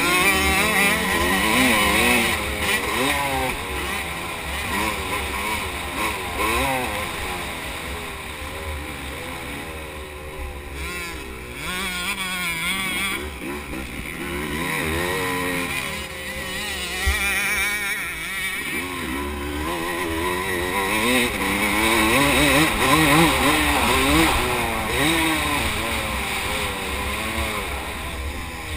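Motocross dirt bike engine under hard riding, its pitch rising and dropping over and over as the throttle opens and shuts through the corners and straights.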